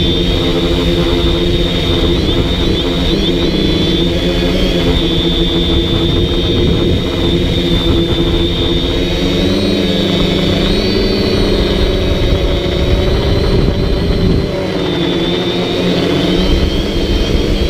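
DJI Flamewheel F450 quadcopter's electric motors and propellers whirring loudly and steadily, with a high whine over a lower buzz. The pitch shifts up and down a couple of times as the throttle changes in flight.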